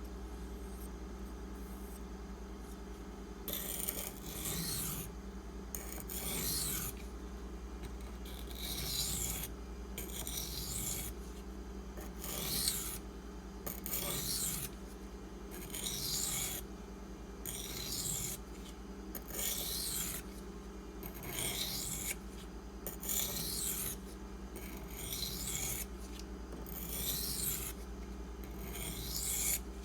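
Steel knife blade stroked back and forth on a coarse 240-grit silicon carbide sharpening stone: rhythmic hissy scraping strokes, starting a few seconds in and coming about once a second. This is the edge being ground back to re-form the apex after chipping damage.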